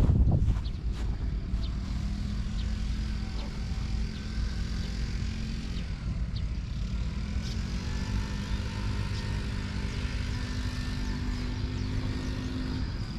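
An engine droning steadily over a low rumble, its pitch rising slightly about halfway through, with a brief louder thump at the very start and a few light clicks.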